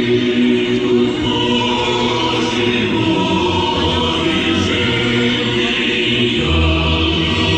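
A large crowd singing together in unison, many voices holding long notes.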